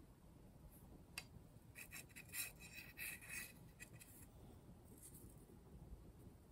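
Faint scraping and rubbing of a slotted G10 handle piece being slid onto a steel knife tang during a trial fit, with one sharp click about a second in and a few short scrapes in the middle.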